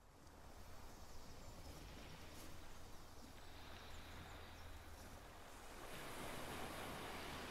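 Faint, steady seaside ambience of distant surf and sea noise with a low rumble, fading in at the start and growing louder about six seconds in. A few faint high chirps come through in the middle.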